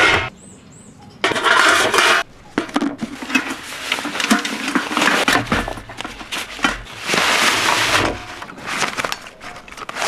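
Stainless steel camp pots clinking as they are nested together, then a nylon stuff sack rustling in bursts as the cookware is packed into it.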